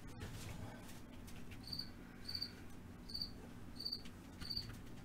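A cricket chirping steadily, one short high chirp roughly every two-thirds of a second, starting a couple of seconds in.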